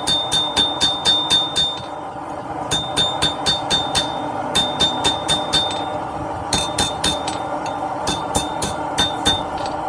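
Hand hammer striking hot steel on an anvil in quick bursts of about four or five ringing blows a second, with short pauses between the bursts. A steady hum runs underneath.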